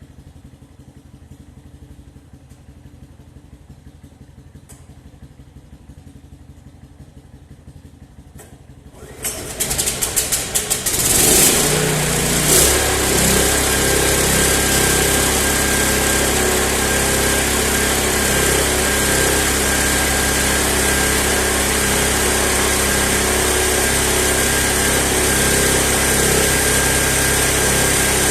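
A 15 hp gasoline stationary engine coupled to an air compressor: a quieter low rhythmic running for about nine seconds, then the engine comes up suddenly, surging for a couple of seconds before it settles into steady loud running as it drives the compressor.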